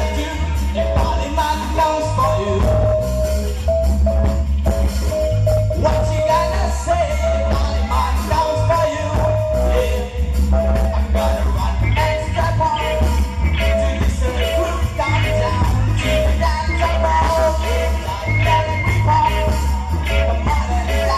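Live rock band playing loud, with a voice singing over drums and a heavy, booming bass.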